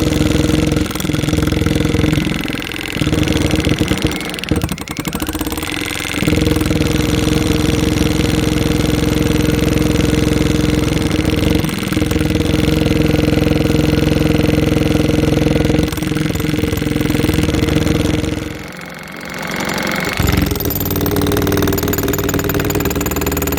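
Milwaukee MX Fuel cordless battery-powered jackhammer running and hammering into concrete, a loud continuous hammering with a steady mechanical tone that dips now and then and briefly stops about three-quarters of the way through.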